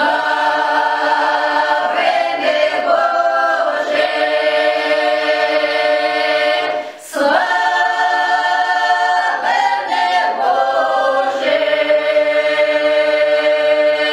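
Ukrainian folk choir of women's and men's voices singing a Christmas carol (koliadka) in close harmony, with long held chords. There is a brief breath break about seven seconds in.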